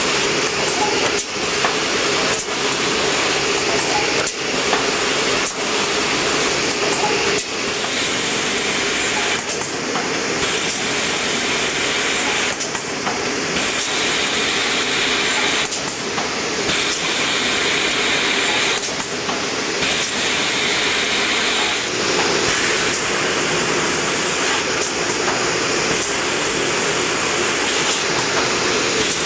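Fidia Vampa Trevi shopping-bag making machine running: a steady mechanical hum under a hissing rush, with sharp clicks about once a second through the first half and a rhythm that shifts every three seconds or so later on.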